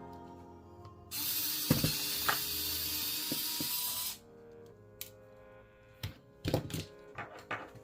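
Electric screwdriver running for about three seconds, backing a small Phillips screw out of a tablet's circuit-board cover. It is followed by several light clicks and taps of the screws and the tool against the device.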